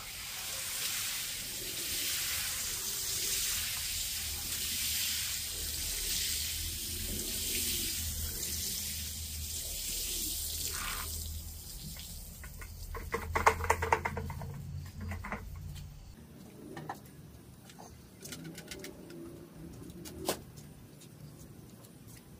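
Water spraying steadily onto a soaked rug over a low motor hum. The spray stops about eleven seconds in, and a louder crackling, splashing patch follows. The hum cuts out a few seconds later, leaving scattered drips and clicks.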